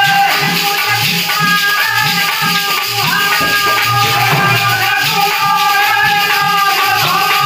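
Dehati thali Ramayan folk music: a man sings a devotional melody over a steady dholak beat, with jingling, rattling hand percussion throughout.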